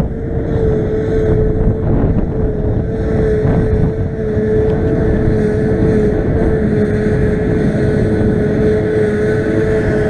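Claas Jaguar 840 forage harvester working, chopping grass for silage, its engine and machinery running steadily with a steady whine over a heavy rumble, together with the tractor drawing the trailer alongside it.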